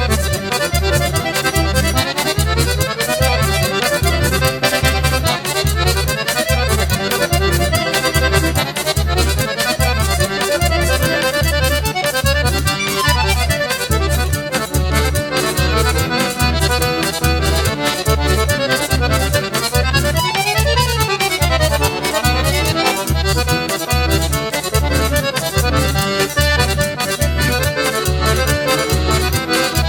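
Instrumental forró pé de serra music led by an accordion playing fast runs of notes up and down. A steady low beat and quick high ticking carry the rhythm underneath.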